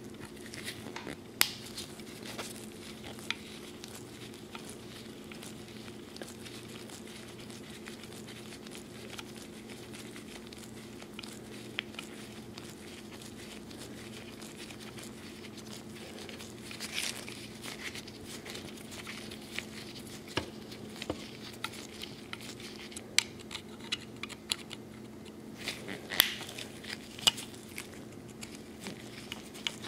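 Handling noise from taking apart a brass-framed 1851 Colt Navy revolver: scattered small metallic clicks and taps of a screwdriver and parts, with the rustle of nitrile gloves. The clicks come more often in the second half, over a steady low hum.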